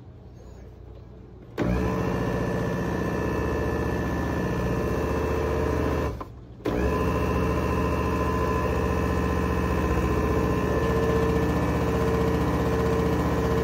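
Blender motor running in two stretches: it starts about a second and a half in with a steady hum, cuts out for about half a second near the middle, then starts again and runs steadily.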